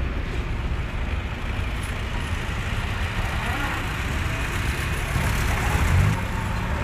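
WWII Willys MB and Ford GPW jeeps, with their four-cylinder flathead engines, running at low speed in a slow column. The sound grows louder for a moment about five seconds in.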